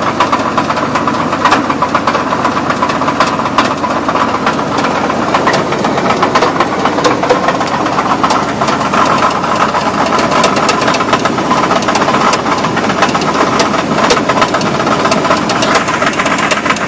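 A 2000 Chevy Blazer's 4.3-litre V6 idling steadily with a rapid, steady knocking from inside the engine.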